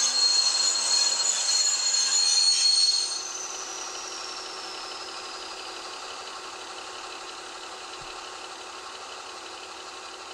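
Sound decoder of an ESU H0 model class 216 diesel locomotive playing its diesel engine sound. It runs loud for about three seconds, drops off suddenly with a falling whine as the model comes to a stand, and settles into a steady idle.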